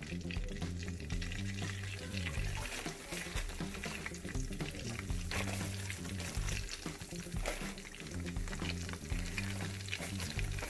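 Flour-coated chicken pieces frying in hot oil, a steady crackle, with background music carrying a bass line underneath.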